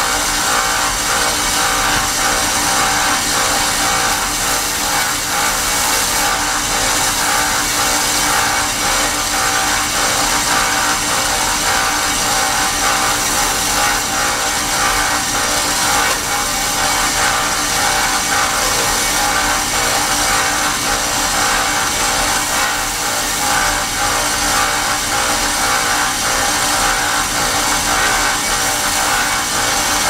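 Small bench belt sander running with a steel lock pick held against its narrow abrasive belt, grinding the pick's edges round in a steady, unbroken grinding noise.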